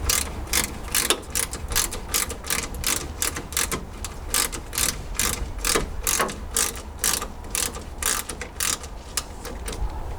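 Ratchet wrench with a 10mm socket undoing a bolt on the radiator mounting, its pawl clicking in a run of about three to four clicks a second as the handle swings back and forth.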